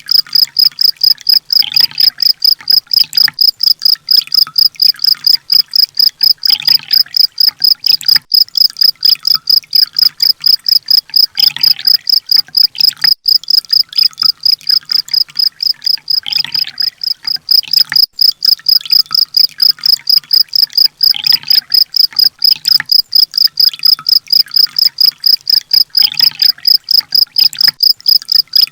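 Recorded sunbird song: a steady, rapid, high-pitched pulsing trill at about four pulses a second, with lower twittering phrases breaking in every two seconds or so.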